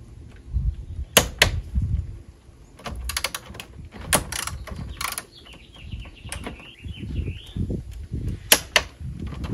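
Sharp metallic clicks and knocks with low handling rumble as a hand driver and wires are worked against the breakers and terminals of a metal electrical panel. Two loud clicks come about a second in and two more near the end.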